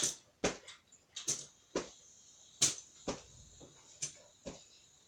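A hand rummaging through a bag of fidget spinners: a series of short, sharp, irregular clicks and rustles.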